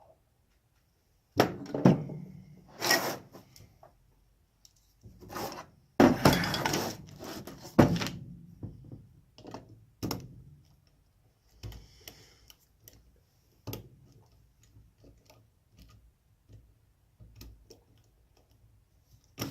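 A tubular lock pick being worked in a tubular lock, making irregular metal clicks, knocks and clatter with short pauses between them. The loudest cluster of knocks comes about six to eight seconds in.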